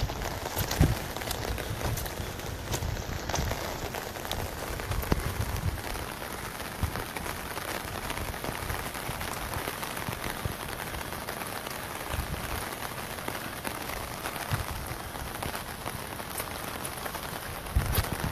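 Steady heavy rain falling, a constant hiss with many small drops ticking close by and a few low thumps.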